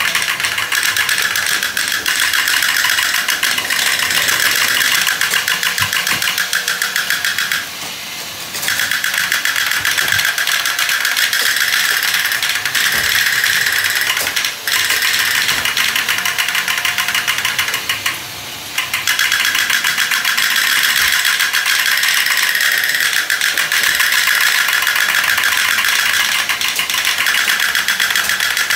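Several battery-operated tin toy tanks running at once: small electric motors whirring and tin-plate gear and track mechanisms rattling in a dense, steady buzz with fast ticking. The noise drops away briefly twice.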